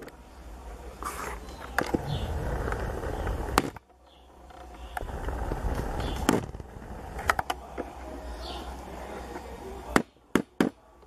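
Spatula scraping putty over reinforcing mesh on the back of a porcelain-tile sink bottom: a rough scraping with several sharp taps. It drops out a little under four seconds in and again near the end.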